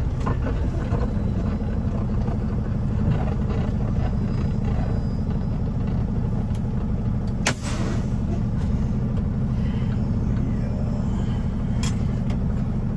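Semi-truck's diesel engine heard from inside the cab, running at a low steady idle with a steady low rumble. A brief sharp sound cuts in about halfway through.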